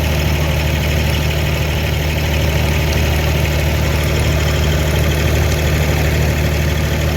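Inboard diesel engine of a wooden abra water taxi running steadily with a deep, even hum.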